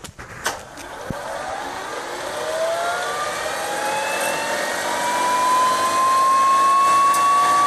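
GTP 70 gas turbine engine starting: a click as it begins, then a whine that rises steadily in pitch as the turbine spools up, with a rushing noise growing louder.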